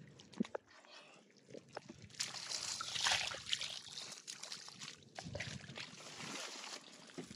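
Splashing and sloshing of muddy water in a plastic bucket as a caught catfish goes in, starting sharply about two seconds in and loudest just after, with a few small clicks and knocks before it.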